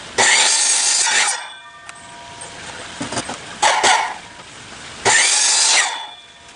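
Power miter saw cutting off the corners of a hardwood cutting board: two short cuts about five seconds apart, each followed by a ringing hum as the blade winds down, with a few knocks of the board being moved between them.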